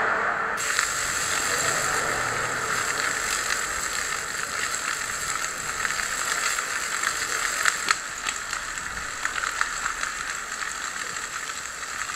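Wildfire burning through brush: dense crackling and popping over a steady rushing noise, with a few louder pops about two-thirds of the way through.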